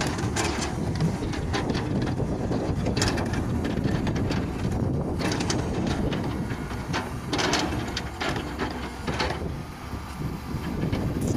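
Kobelco K909 hydraulic excavator's diesel engine running steadily under digging load, with several short scrapes and knocks of the bucket working through rocky soil.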